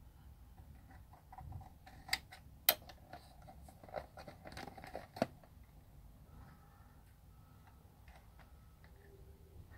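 Plastic tape cases being handled: a handful of sharp clicks and knocks over about three seconds, the loudest near the middle, then faint rustling.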